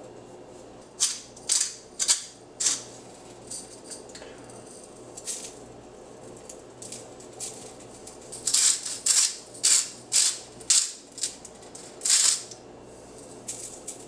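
Seasoning rattling in a shaker container as it is shaken over a pan of raw ground beef: short sharp shakes, four spaced out at the start, then a quicker run of about nine from about eight seconds in.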